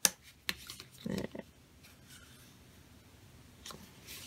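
Bone folder and fingers working a fold in cardstock. There are a few sharp taps and clicks in the first second, then a short rustle of paper about a second in, with faint rubbing and scraping near the end as the crease is burnished.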